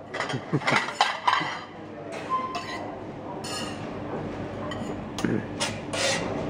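Cutlery and plates clinking at a dining table, with a quick run of clinks in the first couple of seconds and then a few scattered ones over a murmur of background voices.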